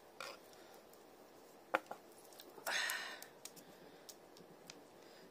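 Quiet room as a person eats a dumpling with chopsticks: a single sharp click a little under two seconds in, and a short breath, about half a second long, near the middle.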